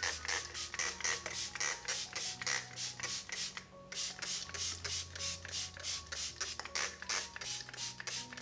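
Hand-held fine-mist spray bottle pumped rapidly, short hissing sprays at about four to five a second with a brief pause partway through, misting egg wash over croissant dough. Faint background music runs underneath.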